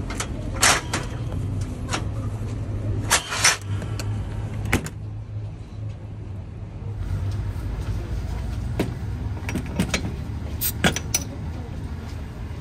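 Sharp clunks and clicks of a glass Coca-Cola bottle being pulled out of the dispensing slot of an old bottle vending machine, glass and metal knocking a few times, loudest about three seconds in, with more clicks near the end. A steady low hum lies underneath.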